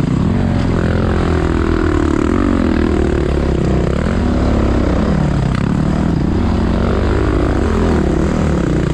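Dirt bike engine running under load, its pitch rising and falling again and again as the throttle is opened and closed.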